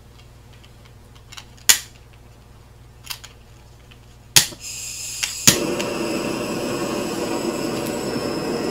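Sondiko culinary butane blow torch being lit: a few sharp igniter clicks, a hiss of gas starting a little before halfway, then a louder click as the flame catches. The flame then burns with a steady rushing noise.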